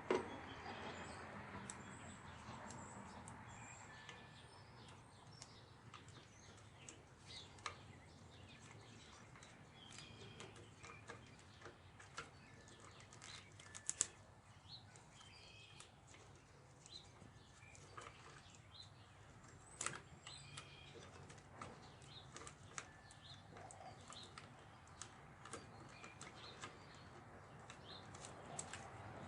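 Faint, scattered light clicks and rustling from hands working on wiring.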